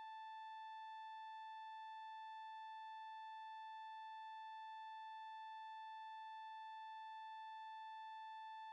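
A steady, unwavering high-pitched tone a little under 1 kHz, with a row of overtones above it. It is the single driving frequency of a violin-plate Chladni demonstration: the plate is vibrating in one of its resonant modes, so the salt lies along the nodal lines.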